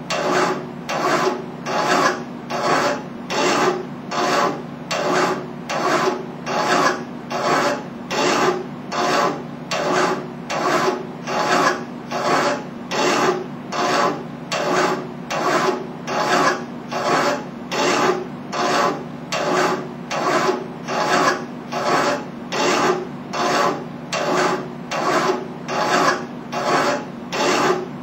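Hand file rasping back and forth on a metal workpiece clamped in a bench vise, in steady strokes about three every two seconds.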